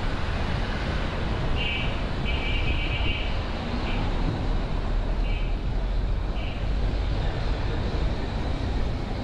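City street traffic noise, a steady dense hum with a strong low rumble. A few short high-pitched tones cut in and out several times in the first part.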